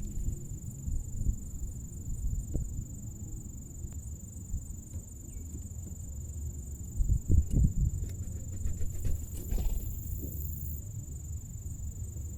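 A steady low rumble with a few louder low thumps about seven seconds in, under a thin, steady high-pitched tone.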